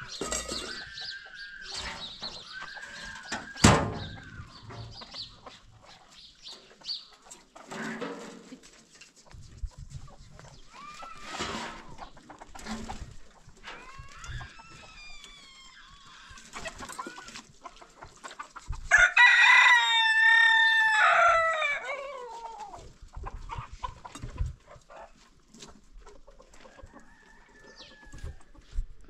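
A rooster crows once, a loud call of about three seconds falling in pitch at the end, about two-thirds of the way in. Hens cluck and call on and off around it. A single sharp knock comes a few seconds in.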